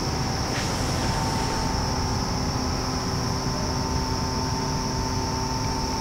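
Steady mechanical hum with hiss and a few held tones, a constant background drone with no distinct events.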